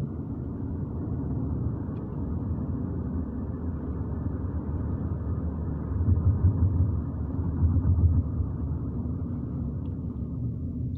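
Steady low rumble of a moving car heard from inside the cabin: road and engine noise while driving, swelling louder twice, about six and eight seconds in.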